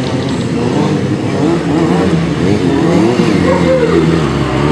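Motorcycle engine revving, its pitch rising and falling again and again.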